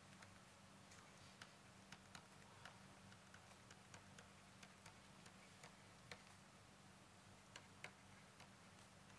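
Faint, irregularly spaced clicks of a stylus pen tapping on a writing tablet while handwriting, over a low steady electrical hum.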